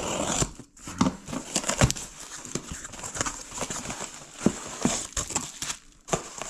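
A mail package being opened by hand: packaging crinkling and rustling, with many sharp clicks and knocks as it is handled.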